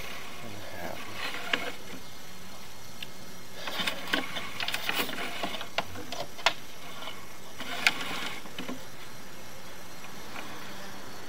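Light clicks and rattles from handling a sewer inspection camera's push cable and reel as the camera head is eased back and forth in the pipe: a cluster of clicks about four seconds in, then a few single ticks, over a faint steady hum.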